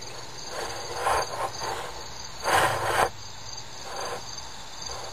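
Crickets chirping in a steady, even pulse, with a couple of brief noisy rushes about a second in and again near the middle.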